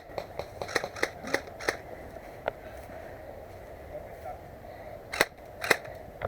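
Airsoft guns firing in sharp single shots: a string of them through the first two seconds, one more at about two and a half seconds, and two louder shots half a second apart near the end.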